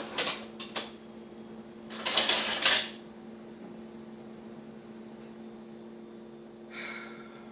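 Metal kitchen cutlery clinking and rattling as it is rummaged through. A few sharp clinks come at the start, then a loud jangling rattle about two seconds in, and a short scrape near the end.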